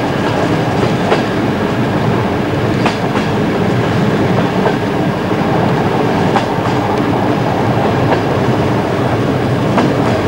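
Passenger train running along the track, heard from inside the carriage: a steady rumble with sharp clicks every few seconds, often in pairs, as the wheels pass over rail joints.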